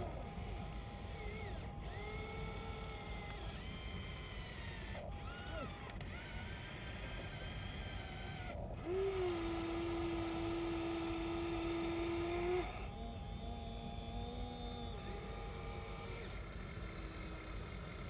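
Electric motors of a Huina 1593 RC excavator whining as the boom, arm and bucket move, several tones starting and stopping with short pitch slides. The loudest is a steady whine held for about three and a half seconds, starting about nine seconds in. A steady low background noise sits underneath.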